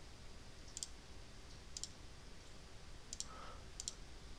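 Faint computer mouse clicks, four short clicks about a second apart, some of them doubled, while pulls are selected one by one in a list.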